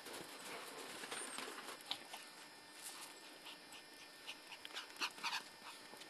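A dog moving through deep snow: faint panting and light crunches, with a short cluster of crunches about five seconds in.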